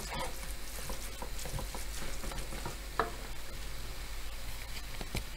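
Minced beef and pork frying gently in a pan, with a low sizzle, while a wooden spoon stirs it: scattered scrapes and taps of the spoon against the pan, one sharper tap about three seconds in.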